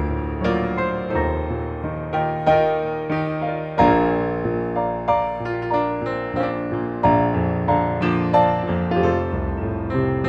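Piano playing an unaccompanied instrumental passage, chords and single notes struck every half second or so, each ringing and fading.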